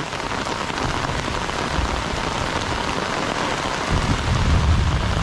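Heavy rain falling steadily, a dense even hiss, with a low rumble joining about four seconds in.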